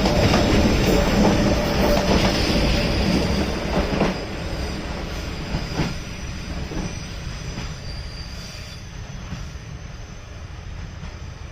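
Vietnam Railways SE26 passenger train rolling past, its wheels squealing thinly on the rails with a few clacks over rail joints, the sound fading as the train moves away.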